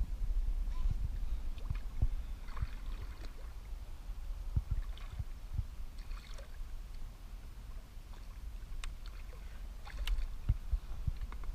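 Low rumble with scattered light knocks and clicks, as from handling noise and gear in a small boat on the water.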